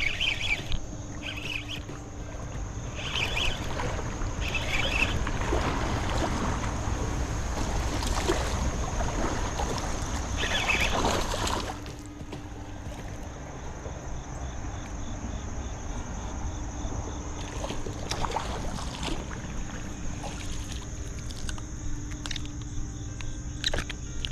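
A hooked striped bass thrashing and splashing in shallow river water while it is reeled in and landed. The splashing is loudest from about two seconds in until it drops off suddenly near the middle, followed by quieter water with a few sharp splashes and ticks.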